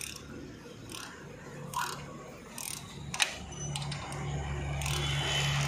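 A spanner clicking and tapping on steel bolts while the brake tube bolts on a tractor's disc-brake housing are being tightened: a few separate metal clicks, the sharpest about three seconds in. From about three and a half seconds in, a steady low drone comes in and grows louder.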